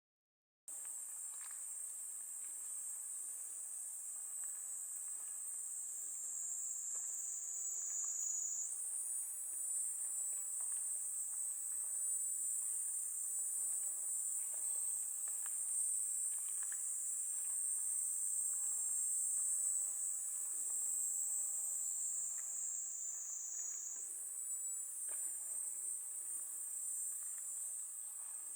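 Cicadas in a steady, high-pitched buzzing chorus whose pitch slowly sinks and then jumps back up, about a third of the way in and again near the end. Faint footsteps on a path sound underneath.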